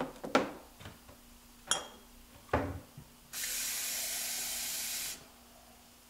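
A few sharp clinks and knocks of dishes being handled at a kitchen sink, then the kitchen faucet runs in a steady hiss for about two seconds and is shut off.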